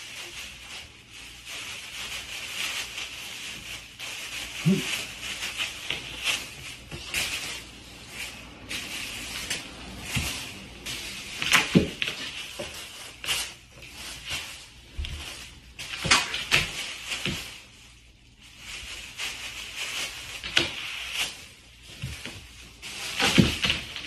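An owl pouncing on and dragging a bag across a wooden floor: irregular rustling and scrabbling with knocks and thumps, the loudest about halfway through and near the end.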